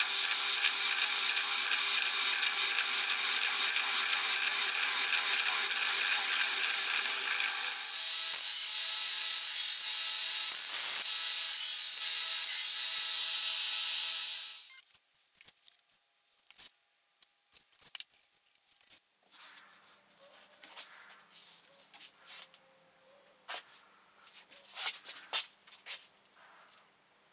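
A drill press running and drilling through a steel knife blade, its motor giving a steady whine; about eight seconds in the tone changes to another power tool, which stops abruptly about fifteen seconds in. After that come faint rustles and clicks of paracord being wrapped around the knife handle by hand.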